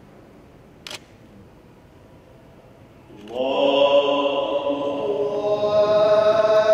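A man's voice chanting the takbir ('Allahu Akbar') of Islamic congregational prayer in long, drawn-out melodic notes, coming in about three seconds in after a quiet stretch with one short click. It is the prayer leader's signal to rise from prostration.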